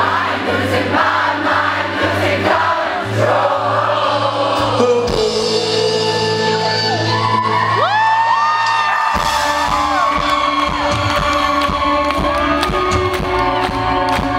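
Live rock band playing with sustained sung vocals; the bass fills out about nine seconds in.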